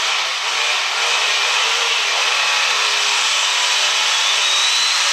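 Super stock diesel 4x4 pulling truck's engine at full throttle, dragging the weight sled. It is a loud, steady roar with a high whine that rises slowly in pitch until near the end.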